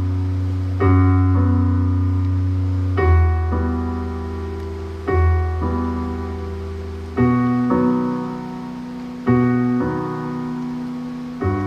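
Piano playing slow, sustained chords over a deep bass note, a new chord struck about every two seconds, with no voice: an instrumental passage of a live song.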